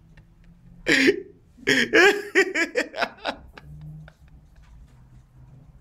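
A man laughing: one short burst about a second in, then a run of quick pitched laughs lasting about a second and a half.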